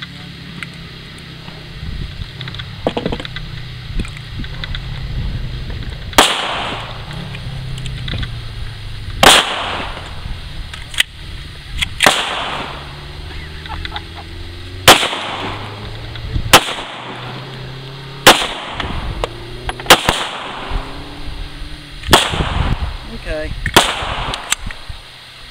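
Semi-automatic pistol firing, about ten single shots spaced two to three seconds apart, beginning about six seconds in.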